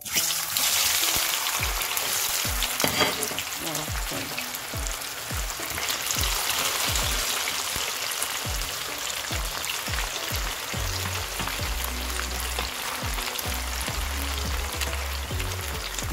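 Raw yam sticks deep-frying in hot oil. The sizzle starts abruptly as they go into the oil and stays loud and steady.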